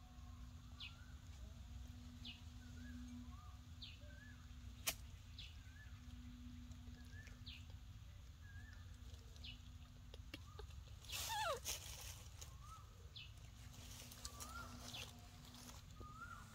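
Faint outdoor ambience of small animal chirps, a short high chirp and a lower curling note repeating about every 0.8 s. A single sharp click comes about five seconds in, and a louder call sweeping downward in pitch comes a little past halfway.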